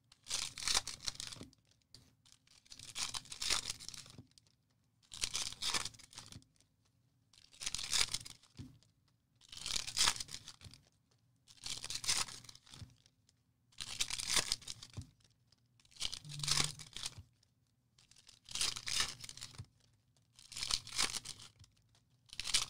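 2021 Elite football card packs being torn open one after another by hand, with about eleven foil-wrapper rips, one roughly every two seconds.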